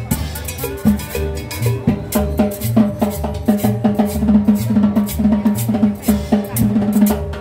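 A live street band playing dance music: drums and percussion keep a quick, steady beat over a plucked upright bass, with pitched melody notes above.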